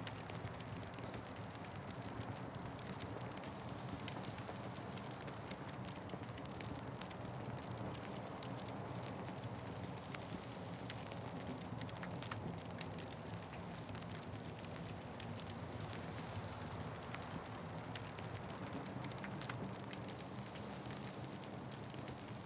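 Fireplace fire crackling steadily, with frequent small sharp pops and snaps over a constant low rush.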